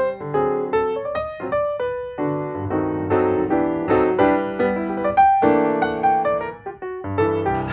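Background piano music: chords and single notes struck one after another, each starting sharply and fading.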